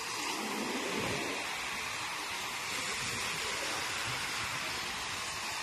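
Surf: small waves breaking and washing up a sand beach in a steady hiss, a little fuller about a second in.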